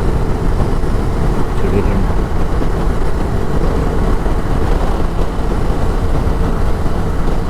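Steady rush of wind on the rider's microphone over the running of a TVS Apache RR 310's single-cylinder engine at road speed.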